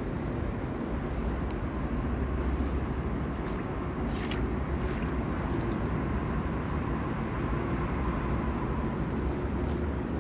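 Steady low rumbling background noise with a faint held hum over it, and a few light clicks about four seconds in.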